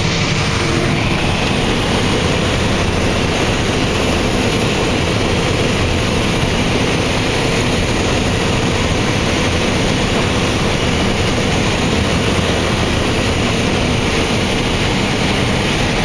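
Claas Lexion 595 combine running steadily under load while harvesting corn and unloading on the go, heard from inside the cab as a loud, even machine noise with a faint steady hum.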